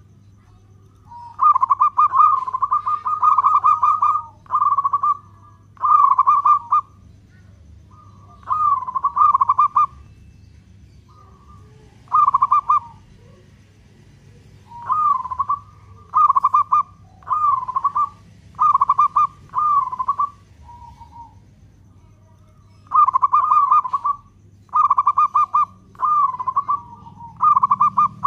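Zebra dove (local perkutut) singing its cooing song: about fifteen short phrases of rapid, wavering coos, each roughly a second long, repeated with brief pauses between them.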